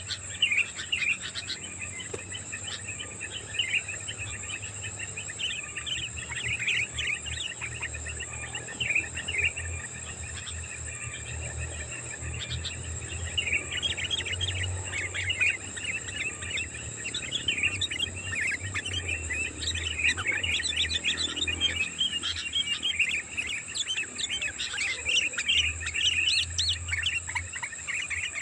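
Sooty-headed bulbuls (kutilang) calling in a busy, continuous chatter of short chirps, used as a lure recording. A steady high buzz runs underneath.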